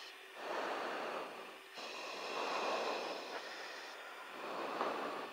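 A person breathing into a live headset microphone on an aircraft intercom: slow swells of breath noise about every two seconds, over faint steady high tones.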